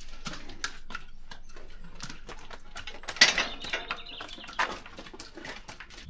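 Irregular knocks and clatter in a concrete cattle passage: a metal gate being handled and boots on the wet concrete, with a louder knock about three seconds in and another near five seconds.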